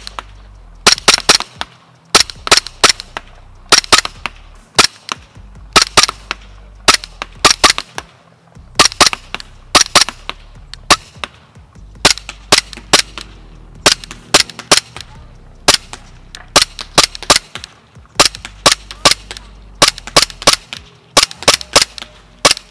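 Umarex Glock 17 Gen 5 gas blowback airsoft pistol firing in quick strings of two to four shots, each a sharp crack as the slide cycles, with a string about every second.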